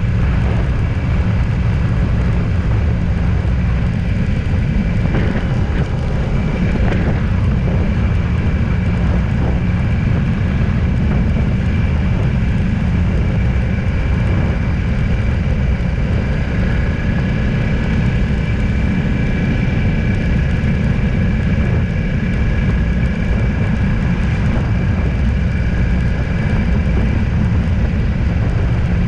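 A vehicle on the move: a steady low rumble of engine and road noise, with faint steady higher tones above it.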